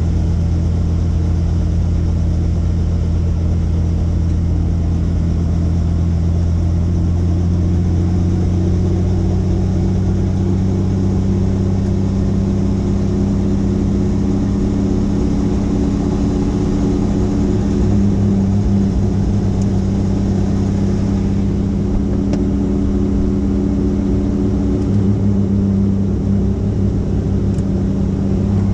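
Helicopter engine and rotors running steadily: a loud, deep drone that grows a little fuller about eight seconds in.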